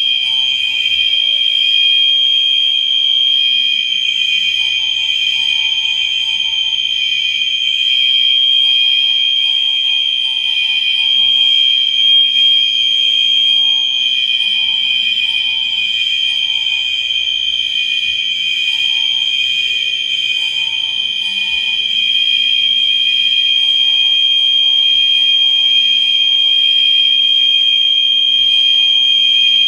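Electronic fire alarm horns sounding together in an alarm activation: a loud, steady, high-pitched tone that does not break. A fainter, lower tone cuts in and out every few seconds.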